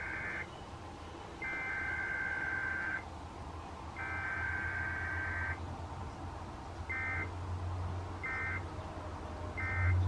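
Sage EAS ENDEC sending Specific Area Message Encoding data tones, a buzzy two-tone warble. First comes the end of one header burst and two more of about a second and a half each, then three short bursts of the end-of-message code, spaced a little over a second apart.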